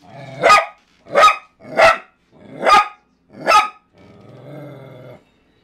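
Small dog barking sharply five times in play, then letting out a low growl for about a second.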